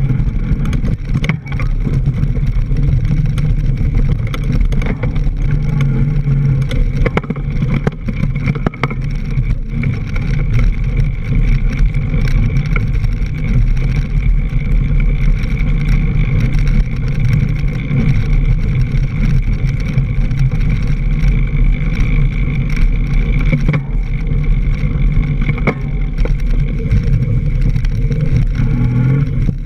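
Mountain bike ridden fast over a dirt trail, heard from a camera mounted low on the front fork: a steady rumble from the knobby front tyre on the ground, with frequent clicks and knocks as the bike rattles over bumps.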